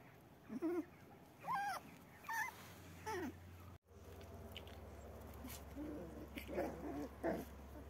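Puppy whimpering: four high, wavering cries in the first half. After a brief drop-out, there are softer, lower whines and grunts.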